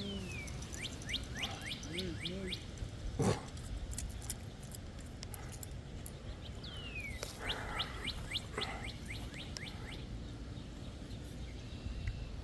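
A songbird singing two phrases, one near the start and one about seven seconds in, each a downward slurred whistle followed by a quick run of short repeated notes. There is a single sharp tap about three seconds in.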